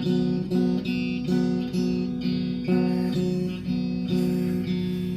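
Strummed guitar playing a repeating chord pattern with a steady rhythm: an instrumental stretch of a song, without vocals.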